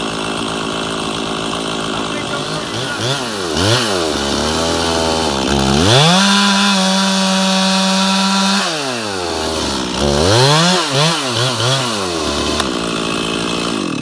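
Stihl two-stroke chainsaw cutting the back cut into a white oak trunk behind the felling notch. It runs steady at idle, then revs up and down as the chain bites, holds full throttle for a couple of seconds in the middle, and drops back toward idle near the end.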